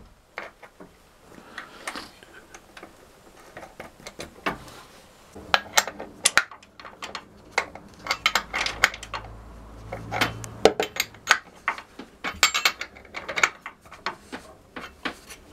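Metal clinks and clicks of a socket wrench and nuts as the valve covers are bolted back onto a marine diesel engine, in irregular clusters of sharp taps.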